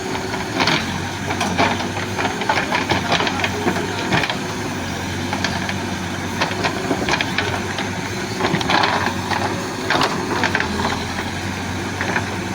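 Backhoe loader's diesel engine running steadily, with irregular knocks and crunching bursts over it throughout.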